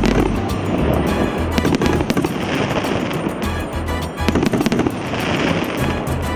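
A 104-shot, 1.5-inch fireworks battery (cake) firing in rapid succession, with shots and crackling bursts coming quickly one after another. Background music with a bass line plays along.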